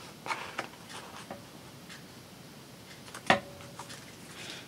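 Scissors trimming off an end: a few soft snips in the first second, then a sharper click with a short ring about three seconds in.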